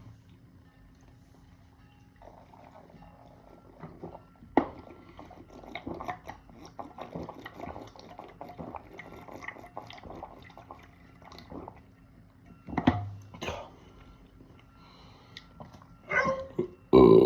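Mostly quiet with faint crackling and clicks and a few short low sounds, then, near the end, a loud, deep burp starts suddenly. The burp is brought up by the gas from a freshly chugged 2-liter bottle of cola.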